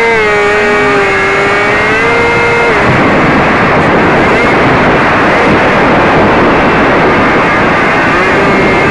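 RC airplane's motor and propeller running with a steady high-pitched drone that dips slightly in pitch about a second in. From about three seconds in, wind rush on the onboard camera's microphone covers the tone, which comes back near the end.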